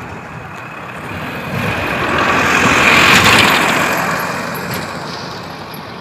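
A motor vehicle driving past on the road, its engine and tyre noise growing louder to a peak about three seconds in and then fading away.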